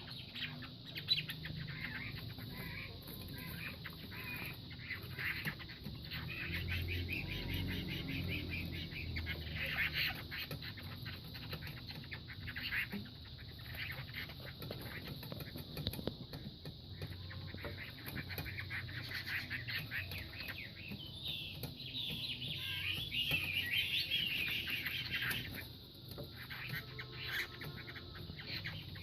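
Two fighting gamecocks sparring: repeated wing flaps and scuffling of their bodies and feet, with high chirping calls for a few seconds around two-thirds of the way through.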